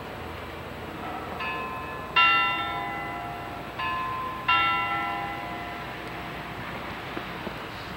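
A bell sounding a two-note ding-dong twice, each strike ringing out and fading; the second, higher note of each pair is the louder.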